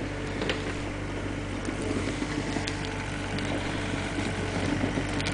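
Engine of a small loader running steadily, a low mechanical drone that grows slightly louder near the end as the machine approaches.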